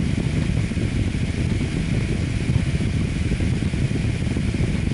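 Prusa Mini fused-deposition 3D printer running mid-print, a steady whir from its fans and motors as it lays down layers.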